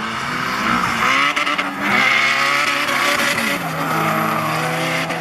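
Two cars launching off a drag-strip start line at full throttle, engines revving up through the gears. The pitch climbs and drops back at a gear change about two seconds in and again at about three and a half seconds, with tyre squeal over the engines.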